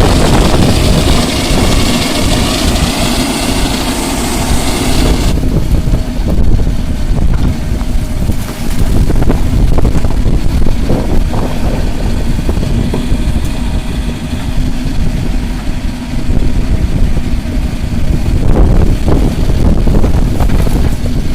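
Diesel engine of a JCB 3DX backhoe loader running, with the sound changing abruptly about five seconds in and a few short knocks later.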